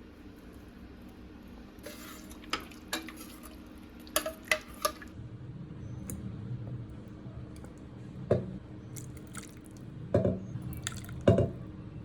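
Kitchenware clinking and knocking in sharp single strikes, about eight in all, the loudest near the end, with a low steady rumble setting in about halfway through.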